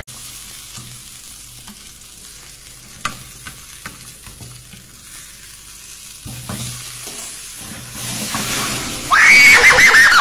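A slice of meat sizzling in a cast-iron frying pan on a gas stove, with a few light clicks and scrapes. Near the end the sizzle swells much louder as the pan flares up in flames, with a high-pitched cry over it.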